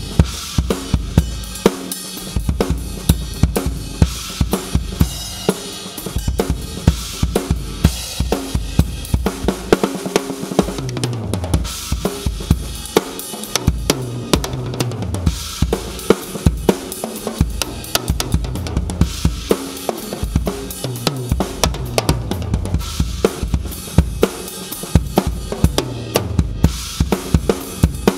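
Acoustic drum kit played as a continuous groove of kick, snare and cymbals, with several fills that step down in pitch across the toms. It is heard through a Yamaha EAD10 mic/trigger on its Compressor scene, which makes the kit's dynamics more even and its sound more powerful.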